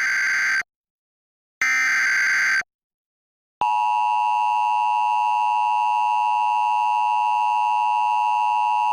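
Emergency Alert System signal: two short buzzy bursts of SAME header data tones about a second apart, then from about three and a half seconds in the steady two-tone EAS attention signal (853 and 960 Hz) announcing a flash flood warning.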